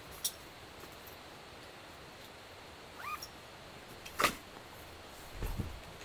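Camping gear being handled and packed by hand on a tent floor: a few small clicks, one sharp click about four seconds in that is the loudest sound, and soft thumps near the end. A short rising squeak comes a little before the sharp click.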